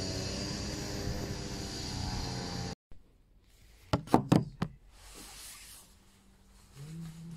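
A steady layer of sustained tones and noise cuts off suddenly about three seconds in. Then comes a quick cluster of loud knocks and bumps from a phone being handled against its microphone, in a quiet room.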